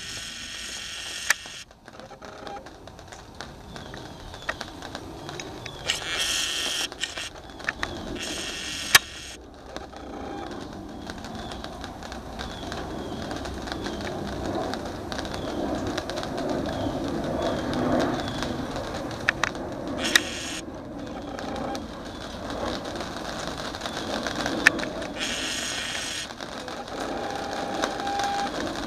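Jet engines of a Boeing 737-800 on final approach passing overhead: a steady rumbling hiss that swells to its loudest about eighteen seconds in, then eases. Short bursts of higher hiss and a few sharp clicks come and go on top.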